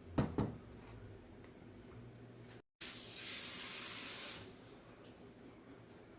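Two quick knocks, then after a short break a steady hiss lasting about a second and a half that stops fairly abruptly.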